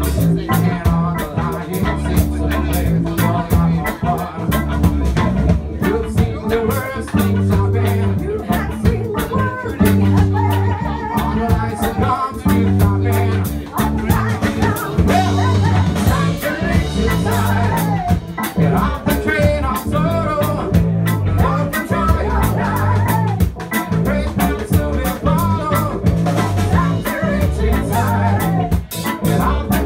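Roots reggae band playing with electric guitars, bass and drum kit under a prominent, steady bass line, with sung vocals on top.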